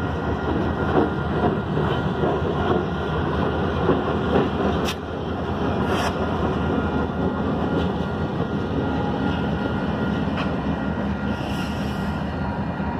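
Freight train passing a grade crossing: the last loaded cars rumble by, then two rear-end locomotives go past with diesel engines running and wheels clicking over the rail joints, with a couple of sharp metallic clanks about five and six seconds in. The rumble carries on as the train moves off.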